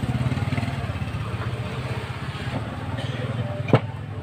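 A motor vehicle engine running, a low rumble with a rapid even pulse that eases off near the end. A single sharp click a little before the end.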